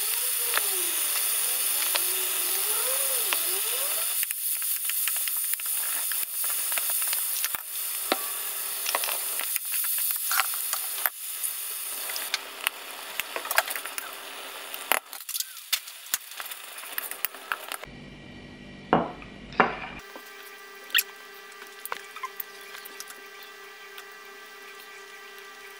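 Vegetables and saltfish sizzling in a stainless steel frying pan, with the clicks and scrapes of a fork stirring against the pan. About twelve seconds in the sizzle dies down as canned baked beans are poured in, and near the end only a few light clicks remain.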